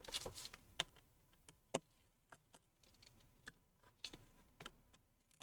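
Faint, irregular light clicks and ticks of a small Phillips screwdriver working the tiny screws out of the metal cover plate inside an iPhone 8. There is a quick cluster at the start, then single ticks every half-second to second.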